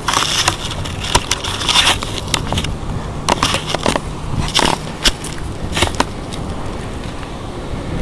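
Irregular crackles, scrapes and rustles close to the microphone from a handheld camera being moved about, over a steady low rumble.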